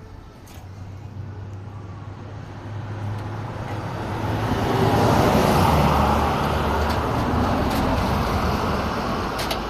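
A passing road vehicle whose noise swells to a peak about halfway through and then slowly fades.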